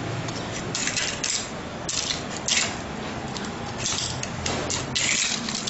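A metal knife blade scraping under and prying up a cooled, hardened sheet of almond brittle (caramelized sugar with almonds) on a stone countertop, the brittle cracking apart. It comes as several short, sharp scrapes and cracks a second or so apart.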